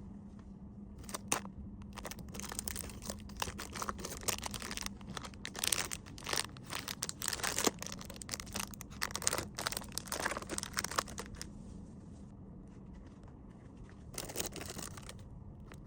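Crinkling and rustling of plastic-wrapped merchandise being handled and packed, in irregular bursts of rustles and small clicks. It goes quiet for a couple of seconds near the end, then rustles briefly again. A faint steady hum sits underneath.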